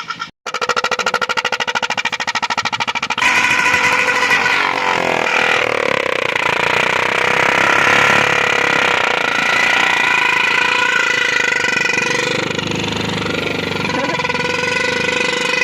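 Several loud electric horns fitted to a Royal Enfield Bullet motorcycle sounding together in a chord. For the first three seconds they pulse rapidly, then they sound continuously.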